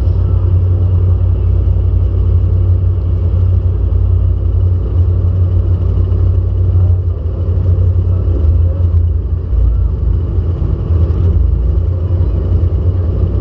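Demolition derby car's engine idling while the car sits still, a steady loud low rumble.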